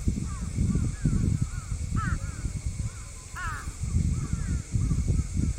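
Birds calling again and again in short arching calls, over a loud, irregular low rumble.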